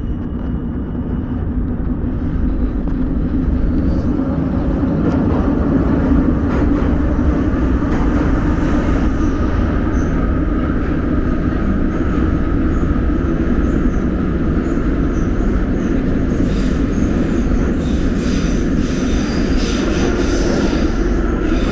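Metro train running at speed, heard from inside the carriage: a loud, steady low rumble of wheels and motors on the track with a constant hum, joined by high squeaks and clicks over the last few seconds.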